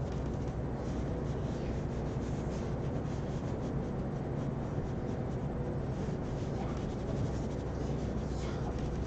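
Graphite pencil scratching on paper in rapid, repeated shading strokes, over a steady low hum.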